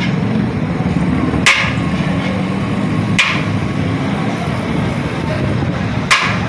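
Three sharp knocks about 1.5, 3.2 and 6.1 seconds in, over a steady low background hum.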